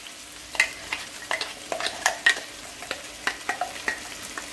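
Chicken pieces sizzling in hot ghee in a frying pan, with irregular sharp clinks, two or three a second, as a spoon scrapes ground masala paste out of a steel mixer jar.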